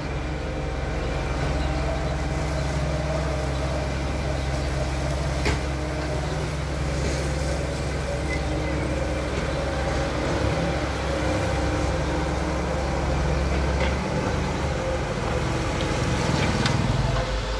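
Heavy diesel engine of a long-reach excavator running steadily as it dredges sludge from a drain, a low drone that eases off about fourteen seconds in.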